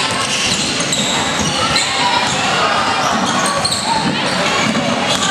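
Basketball bouncing on a wooden gym court during play, with players and spectators calling out, echoing in a large hall.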